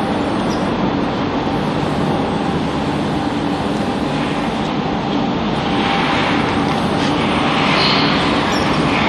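Forklift engine running steadily, with a brighter hiss rising over it in the last few seconds.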